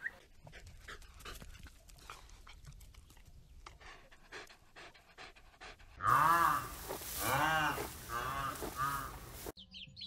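White rhinoceros calling: four short squeaky panting calls that each rise and fall in pitch, starting about six seconds in, the first and second the loudest. Before them only faint clicks; in the last moment, chicks peeping in quick high down-sweeping chirps.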